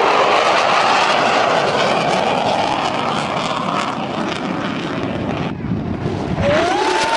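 Fighter jets making high-speed passes overhead: a loud, steady jet roar that breaks off about five and a half seconds in, followed by a second pass with a rising whine.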